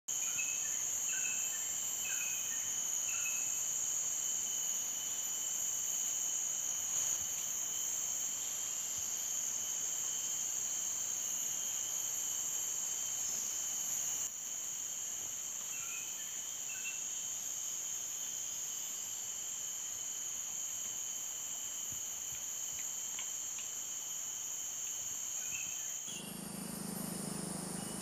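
Steady, high-pitched drone of a tropical forest insect chorus, with a few short bird chirps now and then. Near the end the drone stops and a different, lower sound takes over.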